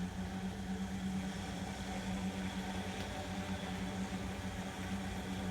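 Steady low mechanical hum with overtones, typical of the motors of helice (ZZ bird) target launchers spinning up their propeller targets, with no shot.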